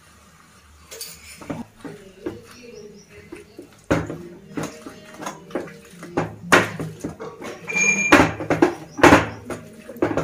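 Potato masher crushing boiled potatoes in an aluminium pan, knocking against the pan in repeated irregular strikes, some with a short metallic ring. The knocks are faint at first and grow louder and more frequent from about four seconds in.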